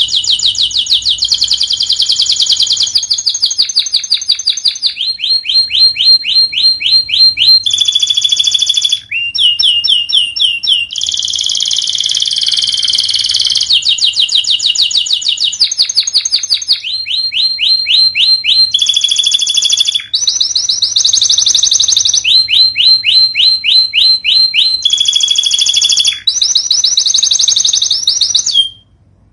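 Domestic canary singing a continuous song of fast trills: each phrase is a rapid run of the same high note repeated many times a second, switching to a new phrase every second or two. The song stops abruptly near the end.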